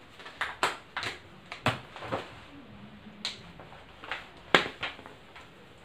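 Whiteboard markers being handled: a dozen or so sharp plastic clicks and taps, irregularly spaced, the loudest about four and a half seconds in.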